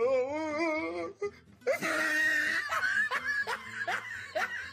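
Laughter over music: a wavering held vocal note, then from about a second and a half in, a quick run of short giggling laughs.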